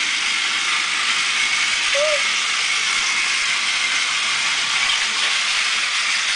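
Battery-powered Thomas toy train running along plastic track, its small motor and gears giving a steady whir.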